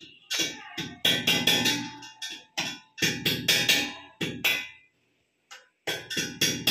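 Background music with a beat, dropping out completely for about half a second a little past the middle.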